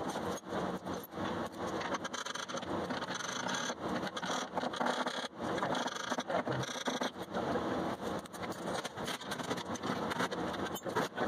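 Tools and metal parts clicking, clanking and scraping as a truck's rear bumper and hitch are unbolted: a dense, irregular run of knocks and scrapes.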